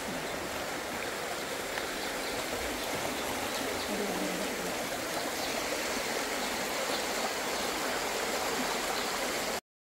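A steady rushing noise, like running water, that cuts off suddenly near the end.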